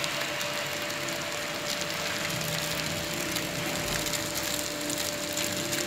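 Boiled noodles being tossed and stir-fried with vegetables and chicken in a hot oiled wok: steady sizzling with many small crackles, over a thin steady tone.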